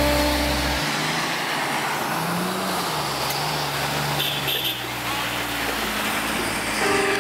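Off-road 4x4 engine revving under load while being pulled out of deep mud on a tow strap, with the tyres churning mud. The engine's pitch rises about two seconds in and then sinks back. Background music fades out just under a second in and comes back near the end.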